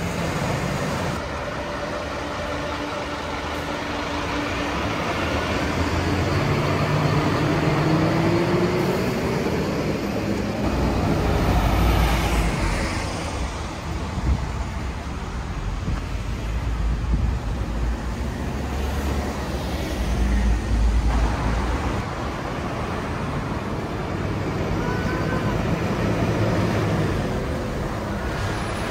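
Fire engines driving on the road: heavy engines running, one rising in pitch as it accelerates, with deep rumbles swelling twice as vehicles pass close, over steady traffic noise.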